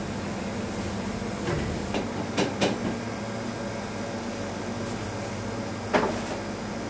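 Steady hum of bakery machinery, with a few sharp knocks and clatters, several close together about two seconds in and one more near the end, as plastic tubs and tools are handled.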